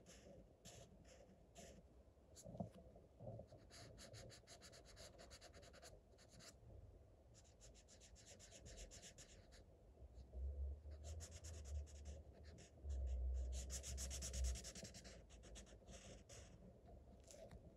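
Felt-tip marker tip scribbling back and forth on paper, faint runs of quick scratchy strokes in bursts with short pauses. A low rumble sits under the strokes for a few seconds past the middle.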